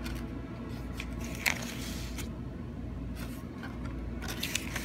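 Paper pages of a small spiral-bound booklet being handled and turned, short rustles and scrapes with one sharp click about a second and a half in, over a faint steady hum.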